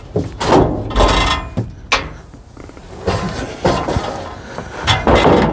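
Metal clanks, knocks and rattles as a stainless steel folding table is pulled from its ceiling rack inside a steel truck-bed cap, about half a dozen separate bangs with a sharp click about two seconds in.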